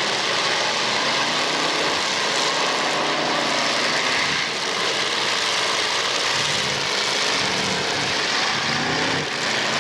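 Several big-car demolition derby engines running together, a loud, steady, unmuffled engine noise with no crashes standing out.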